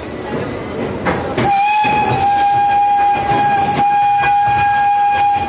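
Locomotive whistle of the Grand Sierra Scenic Railroad ride train blowing one long, steady, single-note blast. It starts about a second and a half in and lasts about four seconds, over the rumble of the moving passenger cars.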